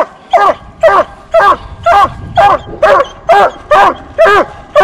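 A coonhound barking at the tree, a steady chop of loud barks about two a second. This treeing bark is the sign that the hound has its quarry treed.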